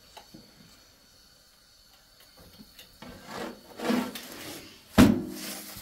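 Handling sounds: rubbing and scraping, then a sharp knock about five seconds in.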